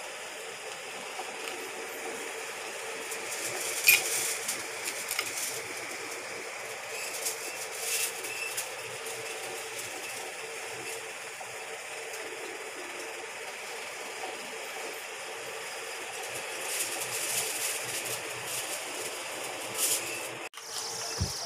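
Scattered light clicks and crinkles of a knife and fingers on a foil-lined baking tray as sliced boiled eggs are laid on. The sharpest click comes about four seconds in, with a steady faint hum underneath.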